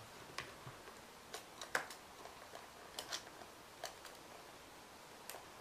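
Pen-style craft knife cutting through paper: faint, short scratchy clicks about once a second as the blade cuts out small leaf shapes.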